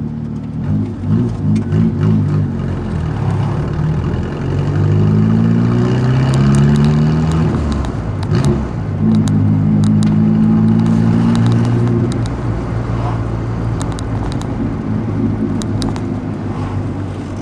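VW Gol's engine and exhaust rumbling as the car is driven: a few quick throttle blips about a second in, then the revs climb from about four seconds in, drop at a gear change near eight seconds, hold high again until about twelve seconds, and ease off to a steady cruise.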